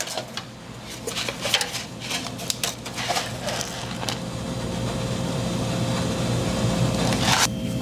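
Clicks and rustles of instant ramen packaging being handled, then hot water poured into the noodle container: a steady rushing that grows louder for several seconds and stops suddenly near the end.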